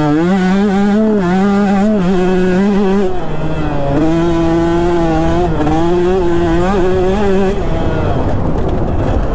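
2019 KTM 150 SX single-cylinder two-stroke engine pulling hard under throttle on a motocross track, its note wavering as the throttle is worked. The pitch steps down about three seconds in. Near the end the engine note drops away, leaving a rushing noise.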